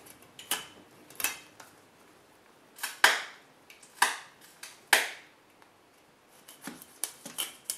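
A knife cutting a bottom fin off a whole Chinook salmon: a string of short, sharp slicing and crunching sounds as the blade notches through skin and fin, about one a second, with several quicker ones near the end.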